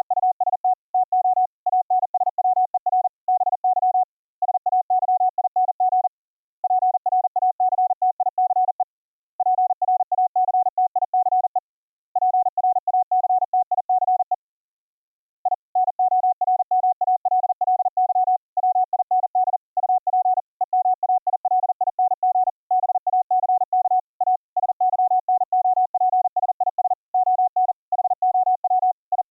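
Morse code from a software CW keyboard: a single steady tone keyed on and off at high speed, in runs of characters broken by short pauses, with one longer pause about halfway through.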